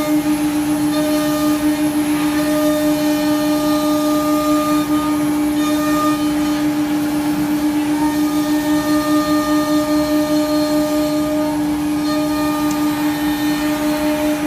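CNC router spindle running with a steady high whine while its bit cuts a profile into a wooden board, over the constant rush of the machine's dust extraction.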